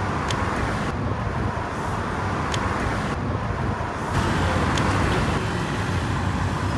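Steady road-traffic noise with a vehicle engine running, and a few faint ticks.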